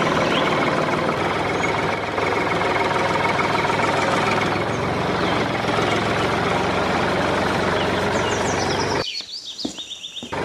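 Tractor engine running steadily with a knocking chug, dubbed over the toy tractor; it cuts out about nine seconds in, where a few short high chirps are heard, and comes back at the end.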